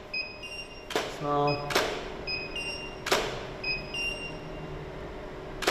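Photo-shoot camera firing about four times, each a sharp shutter click with a short smear after it, with short high electronic beeps going off between the shots. A brief voice murmurs about a second in.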